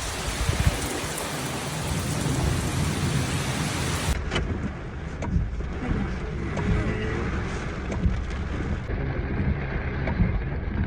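Steady heavy rain falling, a dense hiss with scattered sharper drop hits, over a continuous low rumble.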